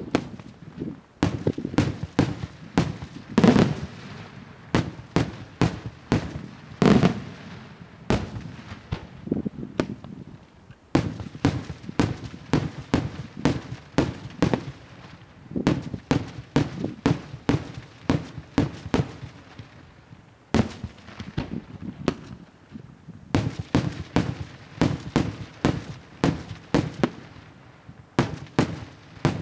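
Daytime aerial fireworks: a rapid, continuous string of sharp bangs from shells bursting overhead, several a second, with two louder booms a few seconds in and short lulls between clusters.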